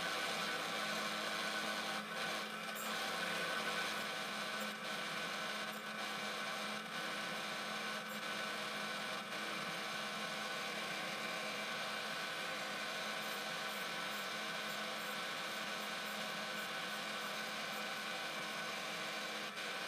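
Quorn tool and cutter grinder running steadily with a constant hum, its wheel grinding relief on the flutes of a tap as the work is worked back and forth against it.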